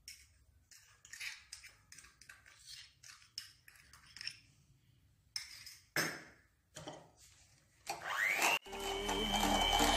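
Light taps and clinks of a glass cup against a mixing bowl as sugar is tipped into creamed margarine and egg. Near the end an electric hand mixer starts up with a rising whine that settles into a steady high whine, as background music comes in.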